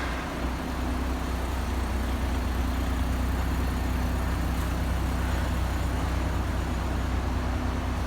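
A steady low mechanical hum that holds one constant pitch, with no knocks or changes.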